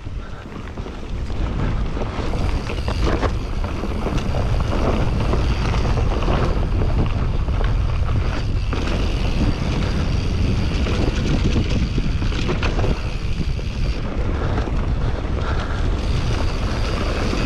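Wind buffeting the microphone of a camera on a moving mountain bike: a steady loud rumble that builds over the first couple of seconds, with occasional short knocks and rattles from the bike on the rough trail.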